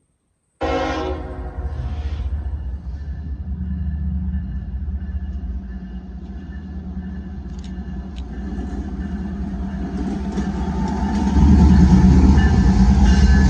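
CSX diesel locomotive approaching and passing close. A horn blast cuts in about half a second in and lasts over a second, then the diesel engine runs steadily, growing louder near the end as the locomotive goes by.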